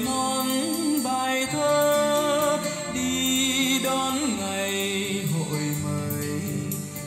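A Vietnamese song playing through a Bluetooth speaker under test: a singer's voice holding notes with vibrato over instrumental backing.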